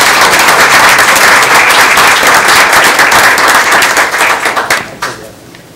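Audience applauding in a meeting room: dense clapping that thins out and stops about five seconds in.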